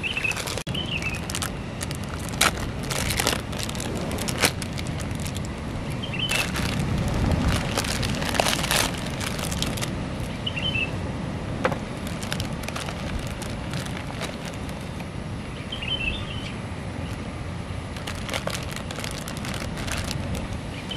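Clear plastic noodle packaging crinkling and crackling in the hands, with scattered short clicks and knocks, over a steady low rumble of surf.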